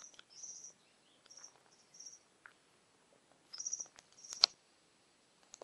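Short, high-pitched chirping in bursts of a fraction of a second, repeating every half second to a second, from small wildlife. A sharp click a little after four seconds in is the loudest sound, and another click comes at the very end.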